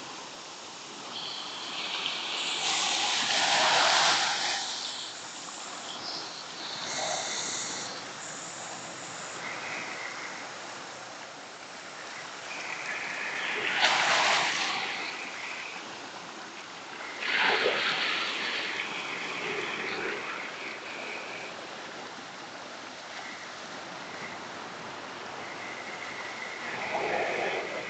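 Small sea waves washing and splashing against a rocky shore, swelling up four times over a steady background hiss.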